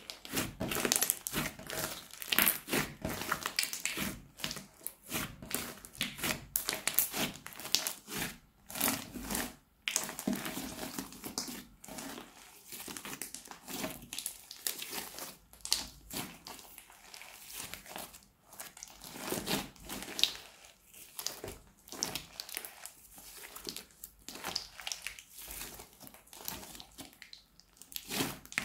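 Hands squeezing and kneading crunchy fluffy slime mixed with cut pieces of plastic piping bag, giving dense, irregular crinkly crackles and pops.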